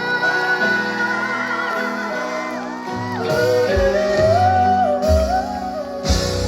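Live band music at a pop concert, with a melodic line wavering over sustained chords. Bass comes in about three seconds in and the music grows fuller.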